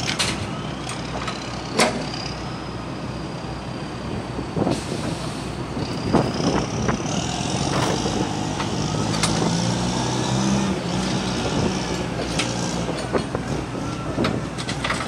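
Heavy engine running steadily, with scattered knocks and clatter and a thin high whine that drifts in pitch.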